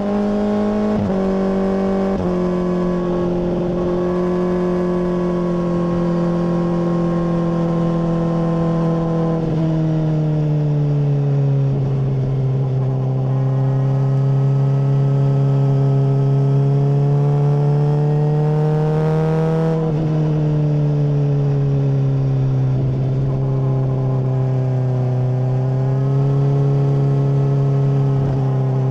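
Honda CBR600RR inline-four engine running through a MIVV full exhaust while being ridden. Two quick upshifts near the start drop the pitch in steps; the revs then sag, climb slowly, drop with another upshift about two-thirds of the way through, and rise again near the end.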